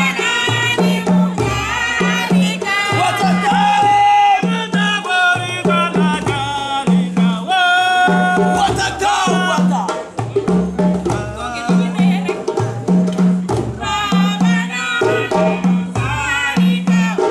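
West African drum ensemble playing a fast, steady, repeating rhythm for dancers, with voices singing over it.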